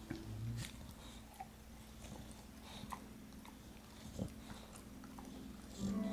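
English bulldog chewing on a long chew held in its jaws: faint wet mouth sounds and small clicks, with one louder knock about four seconds in.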